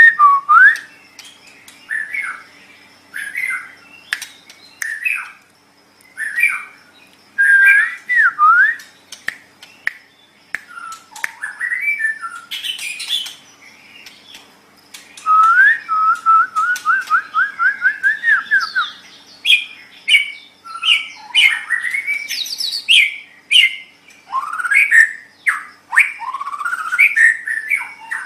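White-rumped shama (murai batu) singing a long, varied song of loud whistled phrases, sliding notes and harsh chattering notes, with a quick run of about a dozen repeated notes about halfway through.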